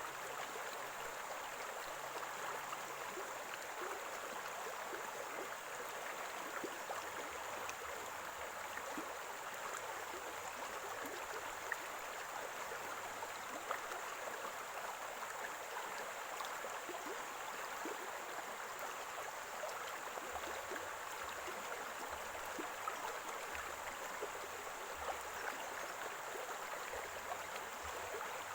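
Small stream of running water gurgling steadily.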